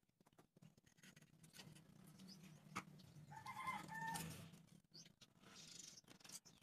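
A chicken calls faintly, one pitched call of about a second midway, over a low steady hum. Light clicks of popsicle sticks being handled.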